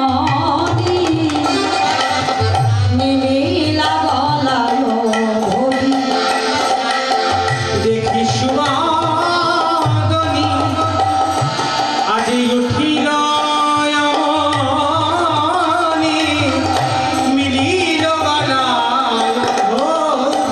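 Bengali devotional kirtan music: hand drums play a steady rhythm under a wavering melody line.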